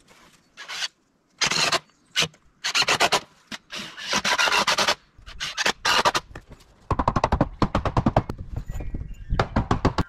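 Rasping strokes of a hand tool on wood: several separate strokes under a second long with short pauses between them, then a fast run of short strokes for the last few seconds.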